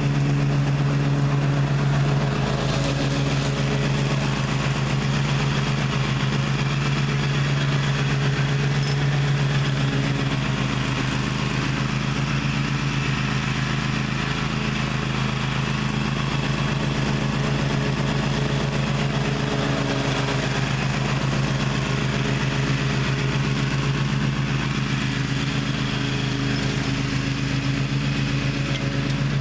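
Gravely ZT X 42 zero-turn riding mower's engine running steadily, its low hum easing and strengthening a little as it works.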